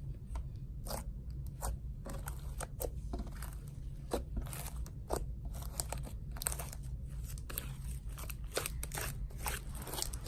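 Homemade stretchy slime being squished, stretched and pressed by hand, giving irregular wet crackles and pops.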